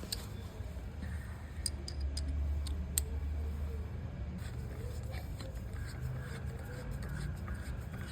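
Brake pads being pushed into the Hero Xpulse 200 4V's rear brake caliper by hand: a tight fit, with light scraping and a few sharp metallic clicks, over a low steady hum.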